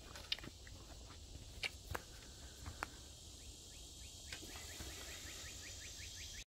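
Faint footsteps of a person walking away over leaf-strewn ground, with a few sharp snaps among them. A steady high-pitched drone runs underneath, and from about four and a half seconds in comes a fast series of short chirps, about six a second.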